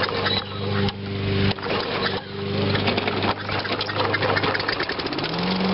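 Toro Recycler's 6.5 hp Tecumseh single-cylinder engine running steadily at low speed, with a few sharp knocks and clicks over it. Near the end its note rises and holds at a higher speed.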